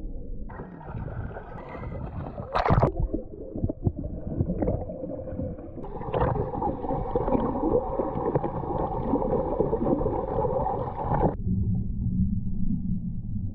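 Water sloshing and gurgling close to the microphone by a small boat, with a sharp splash a little under three seconds in.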